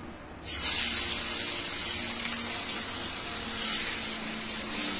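A piece of chilli-marinated fish sizzling as it goes into hot oil in a frying pan: a loud hiss starts suddenly about half a second in and carries on steadily.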